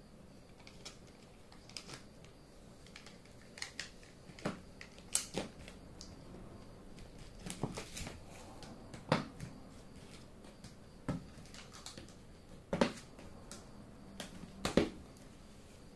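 Plastic Plarail toy track pieces being handled and snapped together, giving irregular sharp clicks and light clatter, a few much louder than the rest.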